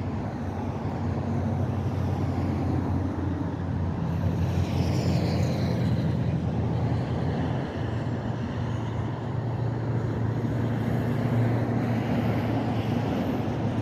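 Diesel engine of an approaching Union Pacific maintenance-of-way train: a steady low engine hum and rumble, its pitch shifting slightly about eight seconds in.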